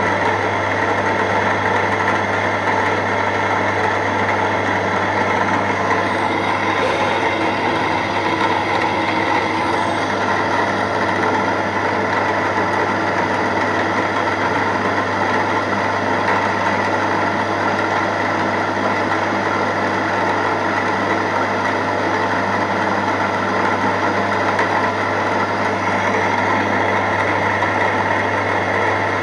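Milling machine running steadily while a 3 mm end mill cuts a small square pocket into a metal slide valve. It makes a continuous machine hum with a strong low tone, unchanging throughout.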